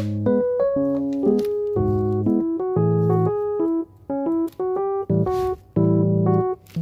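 Background piano music: a light, gentle tune of single notes and chords.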